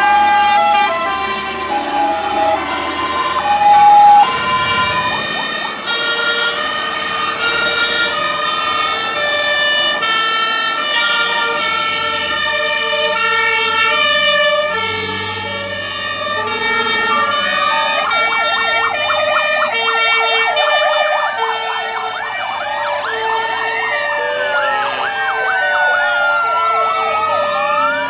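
Sirens of several fire engines sounding at once as they pass in a column: overlapping two-tone sirens stepping between pitches, joined about two-thirds of the way in by rising and falling wail sirens and a fast warble.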